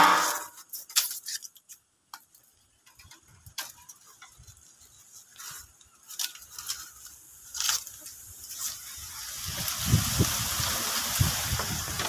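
A loud crinkling rustle as packing tape and styrofoam are pulled away from around a window air conditioner, followed by scattered small clicks and rustles. From about eight seconds in, a hiss with low rumbling grows louder toward the end.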